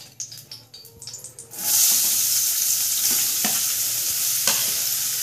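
Chopped onions dropped into hot oil in a stainless steel kadhai: after a few light clinks, a loud frying sizzle starts suddenly about a second and a half in and runs on steadily, with a few knocks of the steel plate against the pan.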